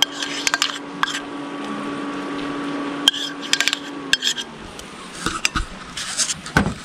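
A metal spoon scraping and clinking against a pan and plate while thick green-plantain mash is spooned out: a string of light, irregular clinks. A steady low hum runs under it and slides down and fades about four seconds in.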